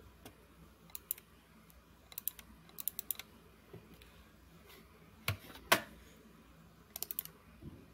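Scattered sharp clicks and taps from a computer keyboard and mouse, in small clusters a second or two apart, over quiet room tone.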